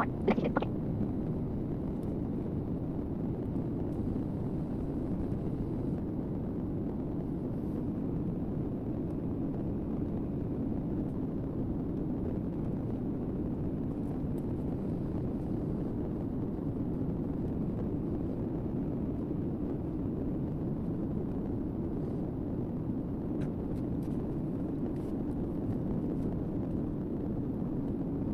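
Steady low rumbling noise, like a vehicle in motion, with a few faint clicks in the second half.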